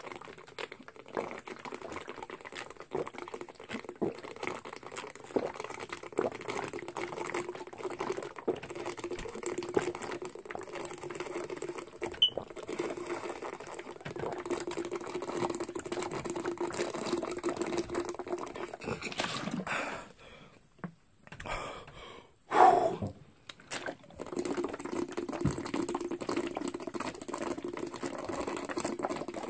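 A person chugging water from a half-gallon plastic bottle: continuous rapid gulping as the water flows from the bottle. The sound breaks off for about two seconds around twenty seconds in, then one loud burst comes before the gulping picks up again.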